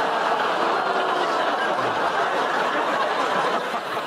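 Studio audience laughing together, a dense, sustained crowd laugh that eases off slightly near the end.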